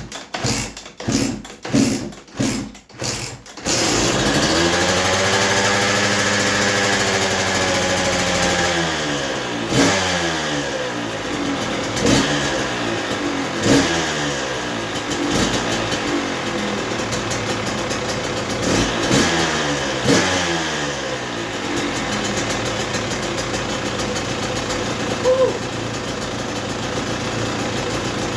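KTM 125 SX two-stroke engine starting for the first time after a top-end rebuild. It turns over a few times, catches about four seconds in, revs up and back down, is blipped in a series of sharp revs, and then settles to a steady idle for the last several seconds.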